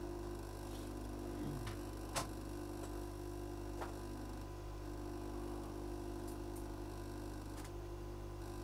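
Steady low electrical hum from repair-bench equipment, with a few faint, brief ticks scattered through it.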